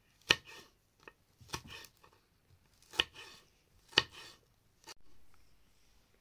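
Knife slicing green chili peppers on a wooden cutting board: a slow, irregular series of sharp knocks as the blade strikes the board, stopping about five seconds in.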